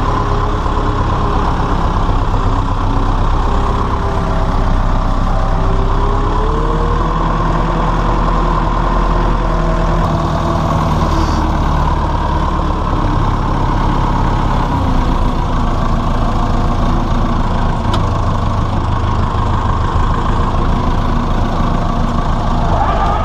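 Massey Ferguson 168 tractor's four-cylinder Perkins diesel running steadily, heard from the driver's seat while the tractor is driven. Its note shifts about ten seconds in and again about fifteen seconds in.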